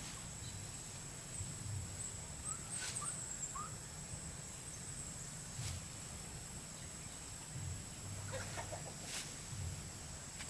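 Chickens clucking faintly now and then: a few short calls about two to three seconds in and a quick run of clucks near the end, over a steady high-pitched whine.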